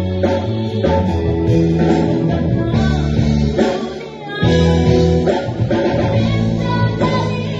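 A boy singing into a handheld microphone over instrumental accompaniment during a soundcheck. The music dips briefly about four seconds in, then comes back in full.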